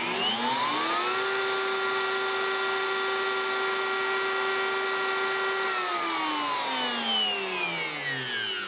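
Ridgid R2200 router motor spinning up with a rising whine over about a second, running at a steady speed for several seconds, then winding down with a falling whine near the end.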